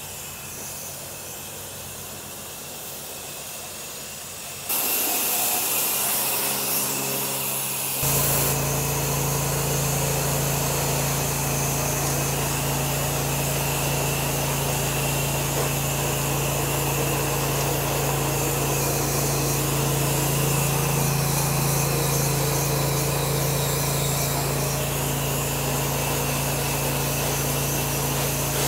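Pressure washer running steadily: a loud hiss of water spray starts abruptly about five seconds in, and a steady motor hum joins it about three seconds later.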